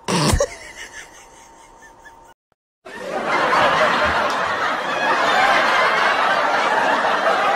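A short, loud, sudden sound right at the start, then after a brief lull, dense continuous laughter from about three seconds in.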